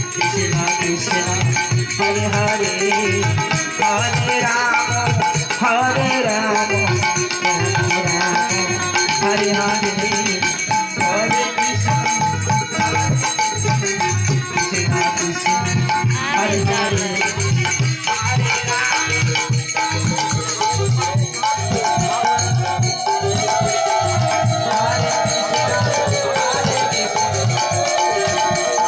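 Live devotional kirtan music through a PA: a harmonium over a fast, steady hand-drum beat with jangling percussion. Near the end a melody slides up and down in pitch.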